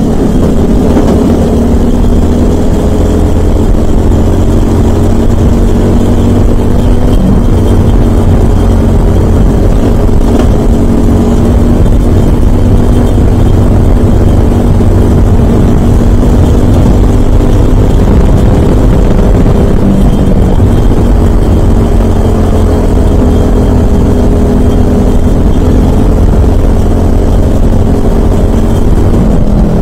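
Onboard sound of a Briggs & Stratton LO206 four-stroke single-cylinder kart engine running hard at racing speed, its pitch holding fairly steady with slight dips through the corners, under a heavy low rumble.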